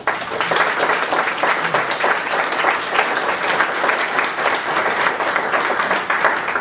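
Audience applauding: many people clapping, starting at once and dying away near the end.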